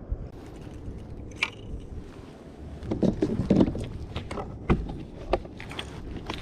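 Scattered knocks and clunks on a kayak, over a steady low rumble, with a louder cluster of thuds about three seconds in.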